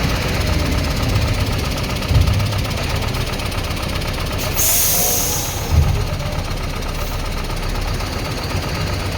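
Heavy engine-driven machinery running steadily as it moves a decommissioned EMU train carriage into a scrapyard. There are two heavy thumps, one about two seconds in and one near the middle, and a brief hiss just before the second.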